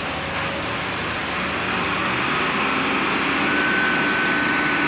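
Heavy dump-truck diesel engines running under load in deep mud, a dense steady noise. A thin steady whine joins in about three and a half seconds in.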